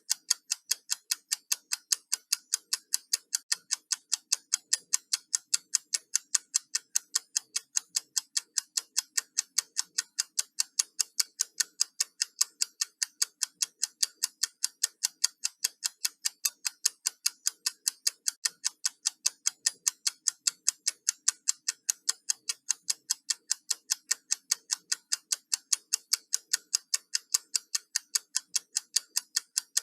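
Countdown clock ticking, with sharp, evenly spaced ticks a few times a second at a steady pace.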